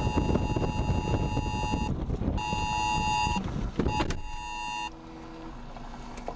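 Electronic alert tone beeping in pulses about a second long with short gaps, over the steady rumble of a vehicle on the road. The beeping stops about five seconds in, and most of the road noise drops away with it.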